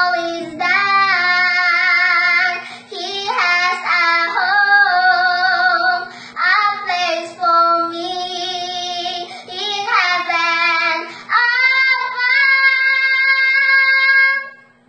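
A young girl singing solo in long held, gliding notes, the last one held about three seconds before she stops near the end. A steady low hum sits underneath.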